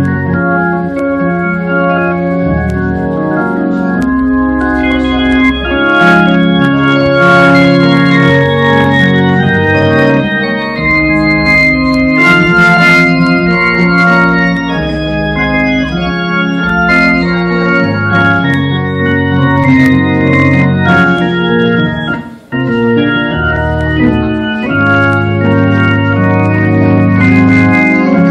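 Organ playing slow, held chords over a low bass line, the chords changing every second or two, with a momentary gap about three-quarters of the way through.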